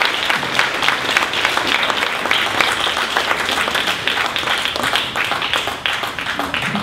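Audience applauding, a dense patter of many hands clapping at once, easing slightly near the end.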